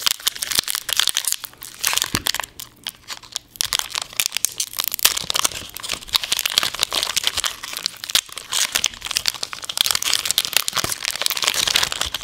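A foil Pokémon card booster pack wrapper crinkling as it is handled and torn open by hand: a dense, unbroken run of sharp crackles.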